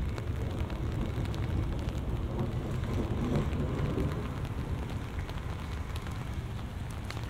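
Heavy rain falling, with scattered close drop hits, under a long low roll of thunder that swells a few seconds in and slowly fades.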